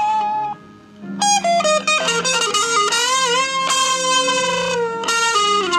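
Bacchus BST-2 RSM electric guitar played through a Cowboy AW15G amplifier, a single-note lead line. A held note dies away in the first half-second and there is a short pause. Then come quick notes with bends, a long note held with vibrato, and a few falling notes near the end.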